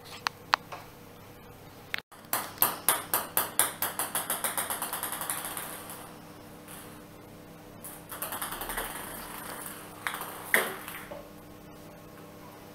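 A small white ball bouncing on a hard tiled floor. About two seconds in it drops and bounces many times, the bounces coming quicker and fainter as it settles. Later a few more taps and short bounces come as it is batted again, the loudest single tap near the end.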